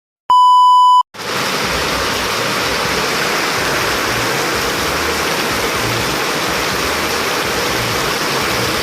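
A single loud, pure beep of under a second, then the steady rush of heavy storm rain.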